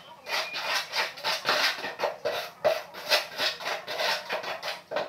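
Rapid back-and-forth scraping by hand against tile, in short even strokes, about four a second.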